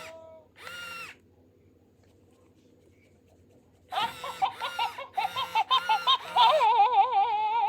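Interactive plush toy pet's electronic voice: a short sound just after the start, then from about four seconds a quick run of high chirps and giggle-like squeaks ending in a long warbling trill.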